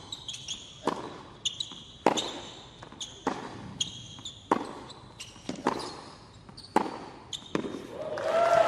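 Tennis rally on a hard court: a racket strikes the ball about once a second, with the ball bouncing on the court and sneakers squeaking between shots. The crowd breaks into cheering and applause near the end as the point is won.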